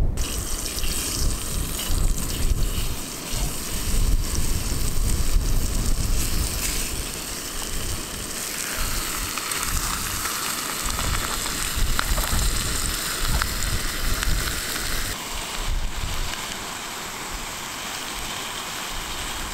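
Bacon sizzling steadily in a frying pan on a gas-canister camping stove.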